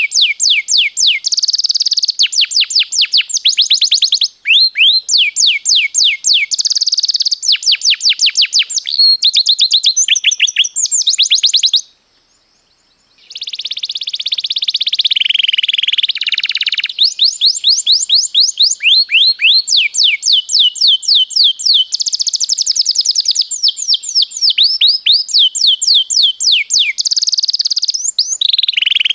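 Domestic canary singing long, loud rolls: fast runs of repeated, sharply falling notes that switch to a new trill every second or so. The song breaks off for about a second near the middle, then resumes with a held warbling passage before the rapid trills return.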